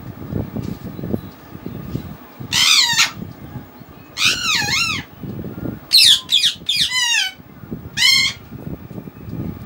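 A series of six high-pitched animal calls, each bending up and down in pitch; the middle three come in quick succession.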